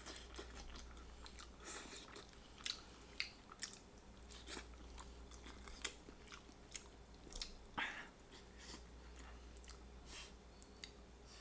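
Someone chewing and biting barbecue rotisserie chicken close to the microphone: soft, irregular mouth clicks and smacks over a faint, steady low hum.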